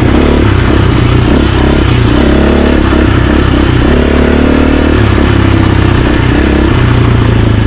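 2024 Husqvarna FE450's single-cylinder four-stroke engine running hard, its revs rising and falling as the bike is ridden.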